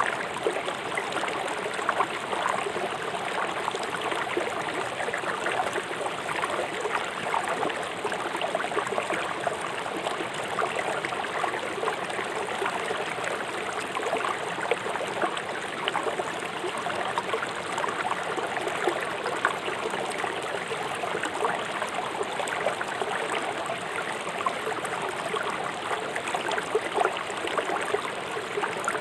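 River water flowing fast over rocks: a steady rushing and splashing with constant small gurgles.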